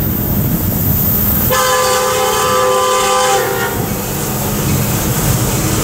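Multi-chime air horn of a CSX SD70MAC diesel locomotive, sounding one blast of about two seconds, over a low rumble.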